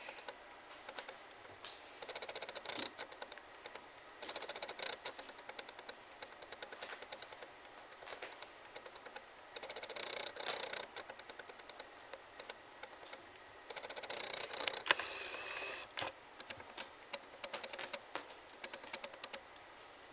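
A kitten batting and chasing a tinsel ball across carpet and a vinyl floor: light crinkly rustles and small clicks and pats, coming in short spells with quieter gaps between.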